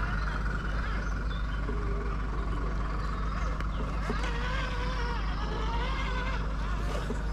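A steady mechanical drone with an even high whine, unchanging throughout, with people talking faintly in the background.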